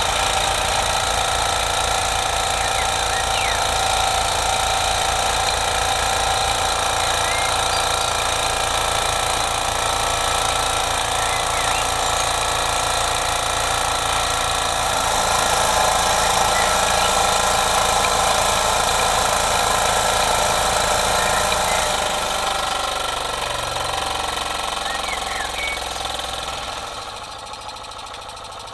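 SteamCo STC01 model steam engine with an oscillating cylinder, running under steam with a fast, steady mechanical chatter. It grows quieter near the end.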